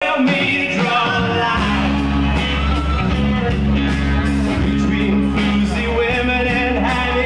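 Live rock band playing loudly through a festival PA: drums, guitar, bass and singing. The bass comes in about a second and a half in.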